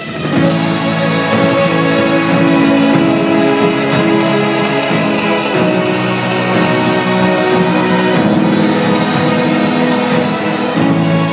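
Background music with a steady beat, coming in suddenly at the start.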